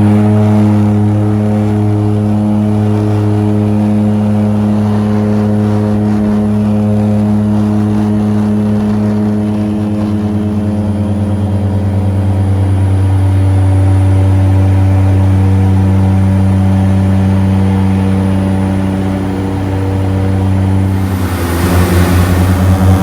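Boat engine running steadily with a low, even drone. About 21 s in it becomes louder and rougher, with a pulsing beat.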